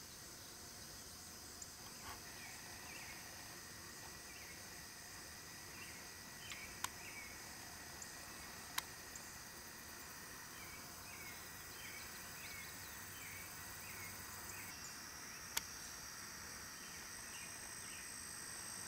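Faint, steady high-pitched chorus of insects such as crickets or katydids, with a bird's short repeated chirps through the middle. Three sharp clicks stand out above it, near the start, the middle and late on.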